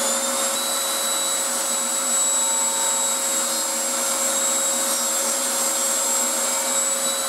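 Vacuum hooked to the table saw's dust port running steadily with a high whine, just switched on: its pitch rises over about the first second as the motor spins up, then holds.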